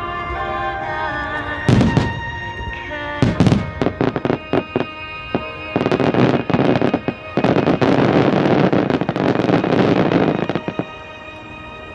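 Aerial fireworks going off over music: a sharp boom a little under two seconds in, another just after three seconds, then a run of pops and a long dense crackling from about six seconds to nearly eleven seconds, when it dies away. Music plays underneath throughout.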